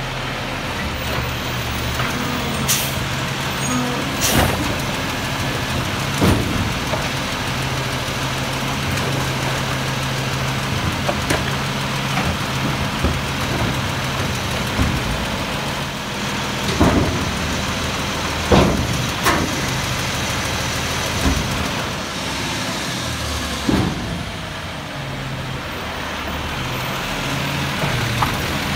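Peterbilt 320 garbage truck's diesel engine running at a low, steady idle while the truck creeps along the curb. Sharp knocks and clunks from the truck come every few seconds.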